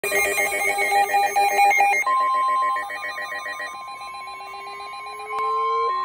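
MD319 weather alert radio sounding a flash flood warning alert. A loud, rapidly switching electronic warble for about two seconds gives way to a single steady high warning tone, while the warbling fades out behind it.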